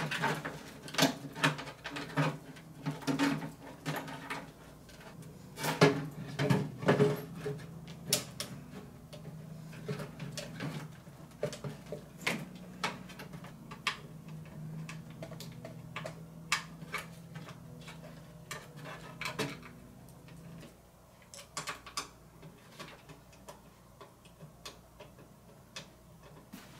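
Irregular clicks, taps and knocks of a power supply and its cables being handled and fitted into a PC case. A faint low hum underneath stops about twenty seconds in.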